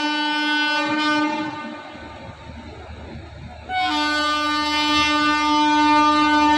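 Indian Railways locomotive horn sounding two long, steady blasts: the first cuts off about a second in, and the second begins a little before the four-second mark and is still sounding at the end.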